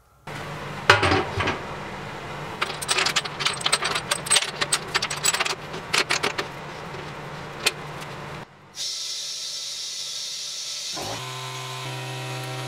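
Rapid clicking and clattering of small hard objects over a steady low hum. After a break about eight seconds in, a steady hiss with a low hum, joined by several steady tones near the end.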